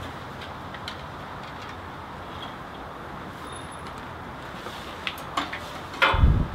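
Steady outdoor background hiss with a few light clicks and rattles from handling a plastic motor-oil jug, then a loud low thump near the end.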